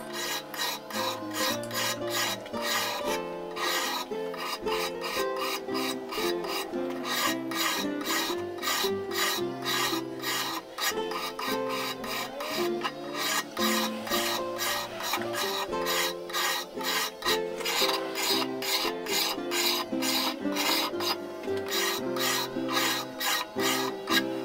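A hand file scraping back and forth across the edge of an old board shear's steel blade, which is clamped in a vise, in quick, evenly spaced strokes. The blade is being filed to take out nicks and sharpen it.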